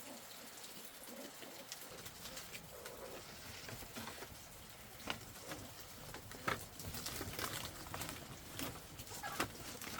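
Soft patter with scattered sharp clicks and low bird calls. A low steady rumble comes in about two seconds in.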